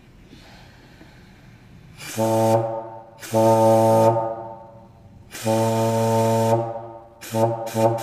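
Homemade air horn made from a plastic water jug, driven by compressed air from a hose, sounding a loud, low steady honk. It gives three blasts about two seconds in, each longer than the last, then a few quick short toots near the end.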